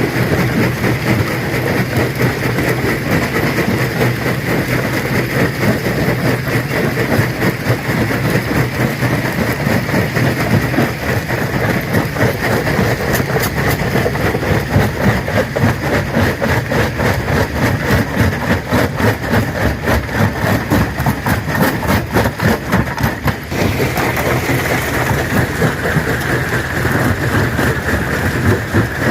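Stone crusher at work: rocks cracking and crunching in a dense, rapid clatter over the machine's steady drone. The crunching thins out near the end.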